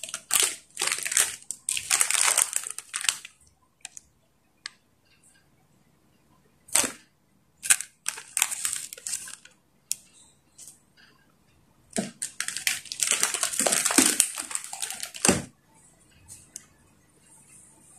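Plastic instant-noodle packets and a plastic water bottle crinkling and crackling as they are handled, in three bursts.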